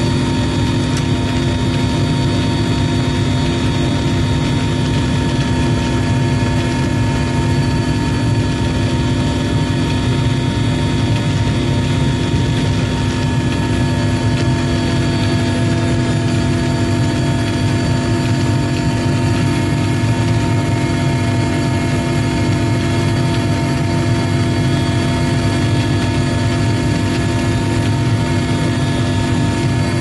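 Steady drone of an aircraft's engines heard from on board, several fixed tones over a low hum, unchanging throughout.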